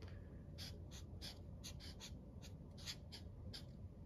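Black marker writing on paper: a run of short, faint strokes as letters are drawn one after another.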